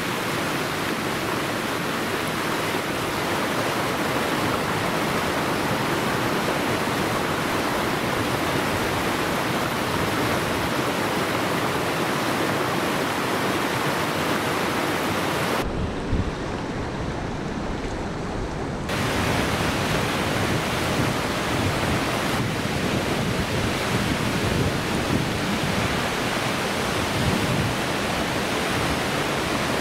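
Waterfall and creek rapids rushing, a steady full hiss of falling and churning water. About sixteen seconds in, the hiss turns duller and deeper for about three seconds, then returns.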